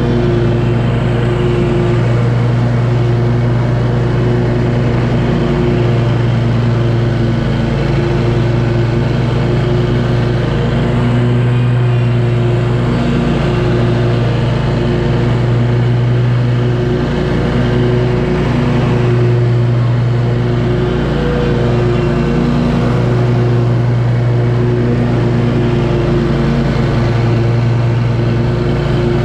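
Scag V-Ride II stand-on mower running at a constant engine speed with its deck engaged while cutting grass, a steady engine drone that holds one pitch.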